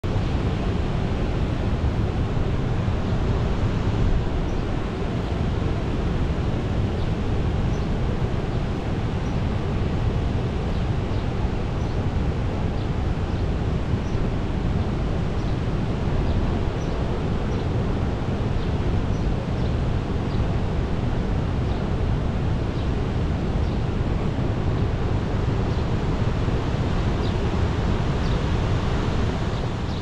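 Steady roar of a river spilling over a wide causeway weir: an even rush of white water with no breaks.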